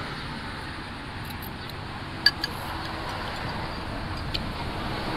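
Metal forks and spoons clinking against ceramic soup bowls a few times, the sharpest about two seconds in, over steady background noise.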